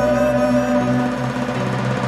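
Background music with long held notes and no clear beat.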